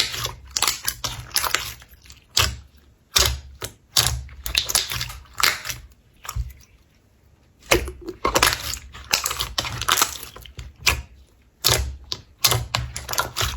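Slime being squeezed and worked by hand, giving rapid, irregular crackling clicks and pops in quick clusters, with a pause of about a second and a half midway.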